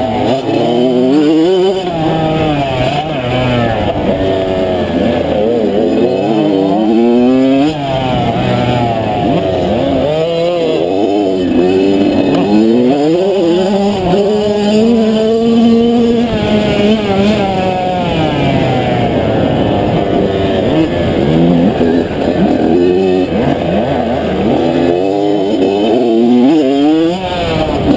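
On-board sound of an 85cc two-stroke motocross bike racing, loud throughout: the engine pitch climbs and drops again and again as the rider accelerates and backs off through corners and jumps, with one longer run held high and steady about halfway through.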